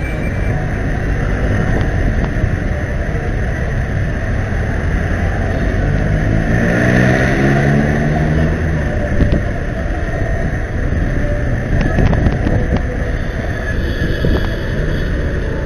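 Busy road traffic heard from above: a steady rumble of engines and tyres, with one heavy vehicle's engine rising in pitch as it pulls away, about six to nine seconds in.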